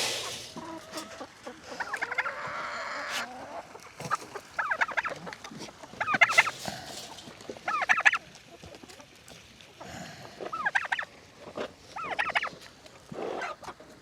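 Domestic turkey calling in a run of short rattling, gobble-like bursts, about one every one and a half to two seconds, with chickens clucking around it.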